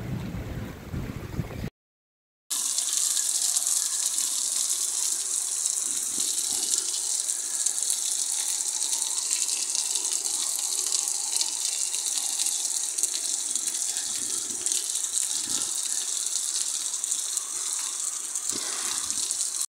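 Heavy rain pouring down in a steady hiss. It comes in after a short low rumbling noise and a brief dropout about two seconds in.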